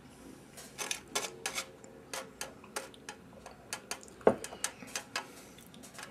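Light, irregular taps and clinks of glassware on a table, a few with a short glassy ring, and one sharper knock about four seconds in.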